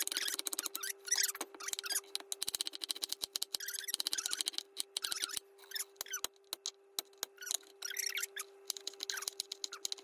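A knife chopping vegetables on a plastic cutting board in quick, irregular strokes, densest in the first half and sparser a little past the middle, with a crinkle cutter slicing through carrot at the start. A faint steady hum runs underneath.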